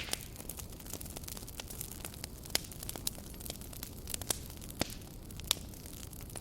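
Campfire burning, wood crackling with irregular sharp pops over a steady low rumble of the flames. The loudest pops come near the start and about halfway through.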